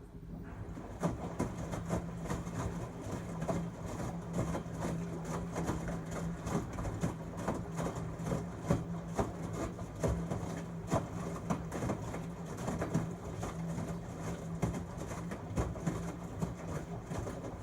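LG Tromm WD-CR101C front-loading drum washing machine tumbling its load during a quick wash: a steady motor hum with irregular thuds and sloshing of laundry and water in the drum. The drum starts turning just after the beginning and stops about seventeen seconds later.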